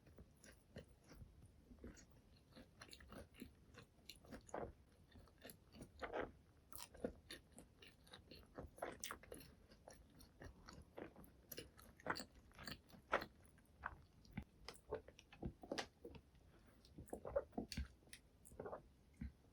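Close-miked chewing and biting of a McDonald's burger and chicken nuggets: soft, irregular crunches and clicks of the mouth, several a second, with no steady rhythm.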